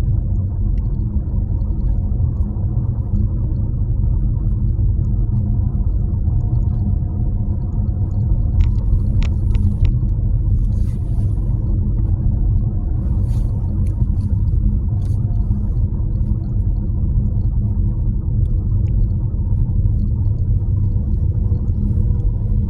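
Nissan Qashqai 1.2 petrol engine running with a steady low rumble, with a few short sharp ticks about halfway through. This is the car with a rattling noise that has not yet been fixed.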